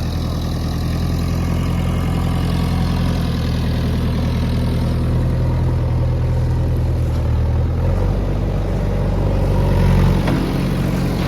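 Heavy diesel engine running steadily, its note shifting about eight seconds in.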